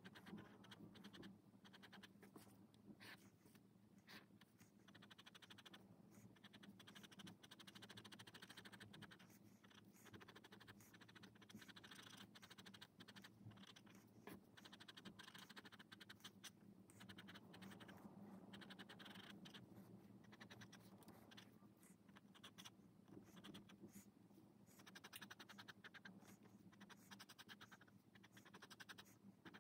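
Faint scratching of a pen on sketchbook paper: quick, short hatching strokes coming in runs with brief pauses, over a low steady hum.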